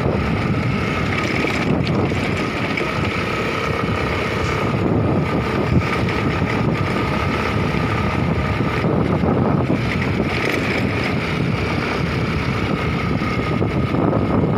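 Wind buffeting the microphone over the rumble of tyres rolling on a rough gravel road as a two-wheeler moves along, steady throughout.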